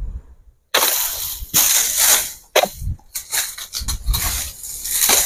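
Oil palm fronds rustling and scraping as a long harvesting pole is worked against them in the crown of the palm. The sound comes as a string of short, noisy bursts that starts about a second in.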